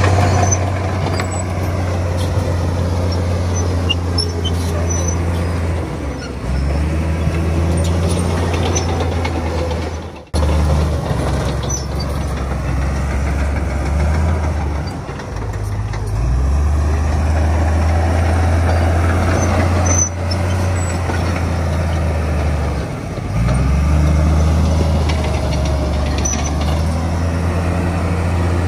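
Heavy diesel engine of earthmoving machinery working under load, its low drone stepping up and down in pitch several times, with a short break about ten seconds in.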